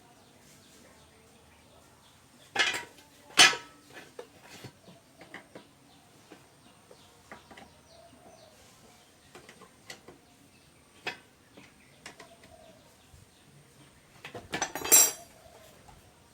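Metal tools and parts being handled and set down: scattered light clinks, two sharp knocks about three seconds in, and a short clattering rattle near the end.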